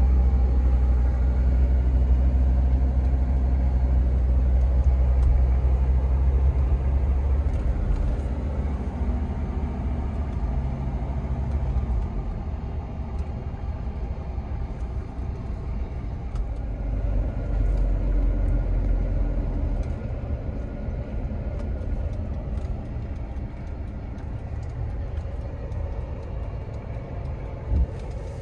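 The 300SD's 3.0-litre turbo-diesel inline-five running, heard from inside the cabin. It holds a steady low drone for the first seven seconds or so, then changes as the car gets under way, with engine and road noise mixing. A single knock comes near the end.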